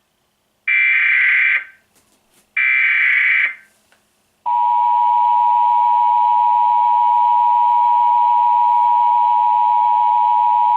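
Emergency Alert System SAME header data bursts: two raspy electronic bursts of about a second each. About four and a half seconds in, the steady EAS attention tone starts and holds unchanged, signalling that an alert message follows.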